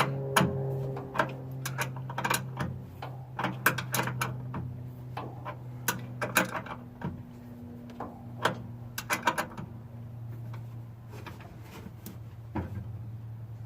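Irregular metallic clicks and clinks, some in quick runs, from hand tools tightening and fitting the terminals of a new starter solenoid on a 1974 Ford F250, over a steady low hum.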